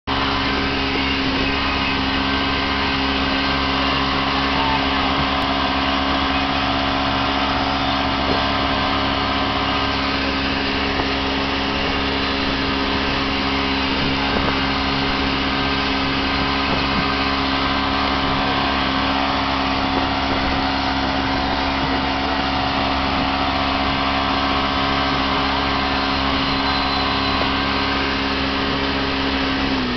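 Johnson V4 85 hp two-stroke outboard motor running steadily at speed, driving the boat on the plane, its constant drone over the rush of water from the wake.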